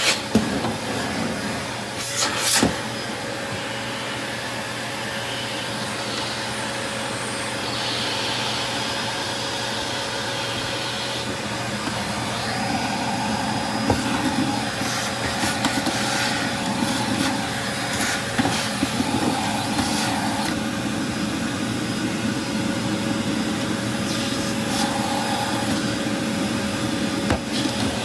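Backpack vacuum cleaner running steadily with a constant hum, sucking up drywall dust, with scattered clicks and knocks of plastic parts being handled.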